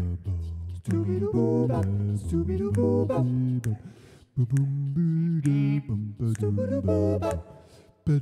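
Wordless a cappella film score: voices humming and singing in phrases, with short breaks about four seconds in and again near the end.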